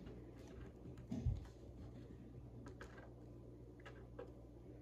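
Faint ticks and light scratches of a felt-tip pen writing on a paper worksheet on a wooden table, with one low thump about a second in, over a steady low hum.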